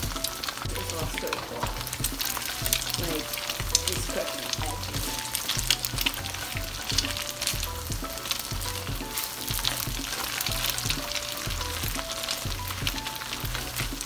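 Eggs sizzling and crackling in plenty of hot oil in a wok while a spatula stirs and chops them.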